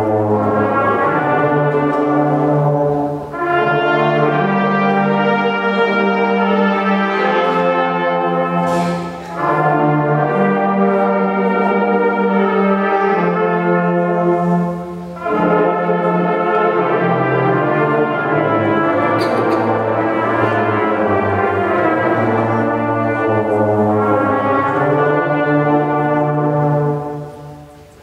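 Slow instrumental music in held chords, played in phrases of several seconds separated by short breaks; the last phrase fades out near the end.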